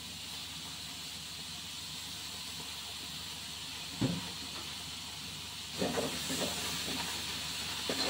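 Sliced squid sizzling with a steady hiss in a hot wok. About four seconds in there is one sharp knock. From near six seconds on, a metal spatula scrapes and clatters against the wok as the squid is turned.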